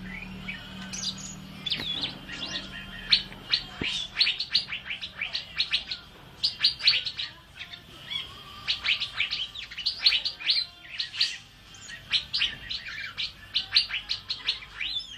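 Asian fairy-bluebird (cucak biru) singing: rapid runs of short, sharp, downward-sweeping chirping notes in bursts of a few seconds, with brief pauses between phrases.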